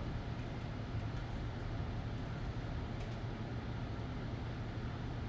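Steady low hum under an even background hiss, with a few faint clicks.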